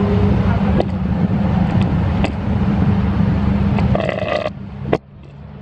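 Steady low rumble of road traffic. About five seconds in a sharp click is heard and the noise drops off steeply.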